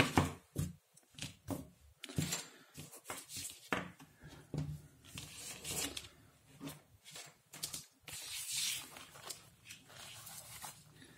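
Irregular small clicks, taps and rustles of headphone wires, parts and small tools being handled on a work surface, with a brief rubbing rustle about eight seconds in.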